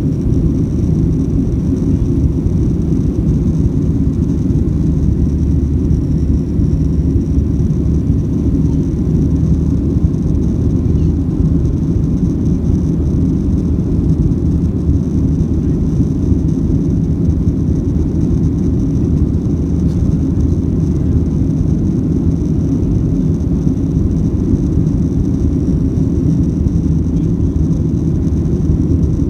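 Steady low rumble of a Boeing 737-700 in flight, heard inside the passenger cabin: its CFM56-7B engines and airflow, with a faint high hiss above, unchanging throughout.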